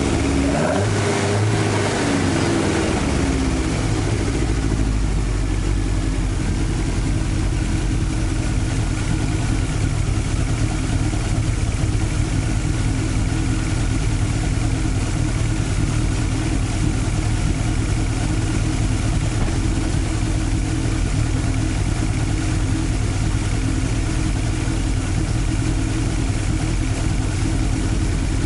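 Carburetted Toyota 5-valve 4A-G four-cylinder engine just after starting: the revs come down over the first few seconds, then it settles to a steady idle. The air conditioner is switched on to load the engine and try to reproduce its unstable idle.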